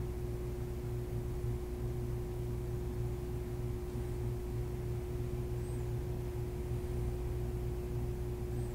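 Steady low hum with a constant higher tone running through it, even throughout.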